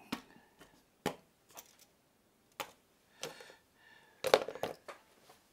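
Small hand tools and model parts handled on a workbench cutting mat: scattered light clicks and taps, with a cluster of louder knocks about four seconds in.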